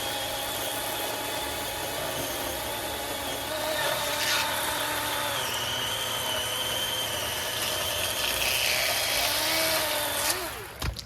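Cordless DeWalt 20V battery chainsaw running and cutting through cherry wood, a steady electric whine that drops lower a few seconds in as the chain bites. Near the end the trigger is released and the motor spins down quickly, followed by a couple of knocks.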